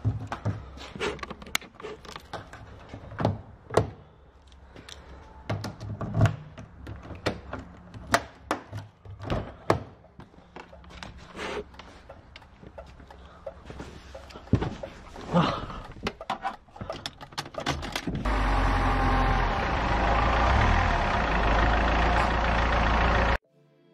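Irregular knocks, clicks and thunks, as of handling around a car's door and interior, then a loud steady rushing noise with a low rumble for about five seconds that cuts off suddenly near the end.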